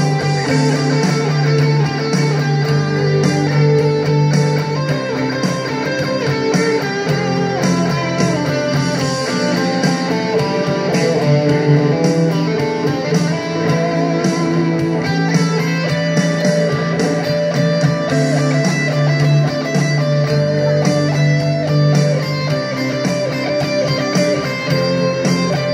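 Electric guitar improvising rock lead lines, heard through an amplified speaker, with a steady beat and long-held low notes behind it.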